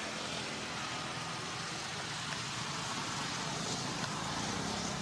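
Steady outdoor background noise: an even hiss with a faint low hum underneath, holding level throughout.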